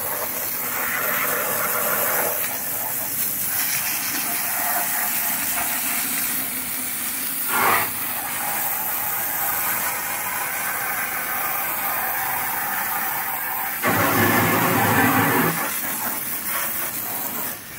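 Pressure washer running steadily while its jet of water sprays onto the dirty plastic hull of a small paddle boat. The spray gets briefly louder a little before halfway through, and again for a second or two about three-quarters of the way in.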